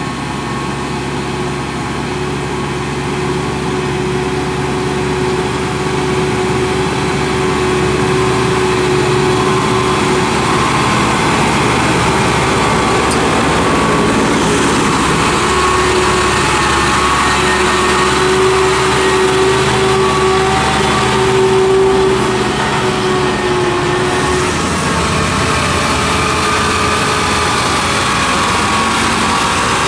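UD Quester GKE 280 tractor trucks' GH8E diesel engines (280 hp) running under load while hauling loaded trailers towards the microphone, a steady engine sound that grows louder over the first several seconds as they approach.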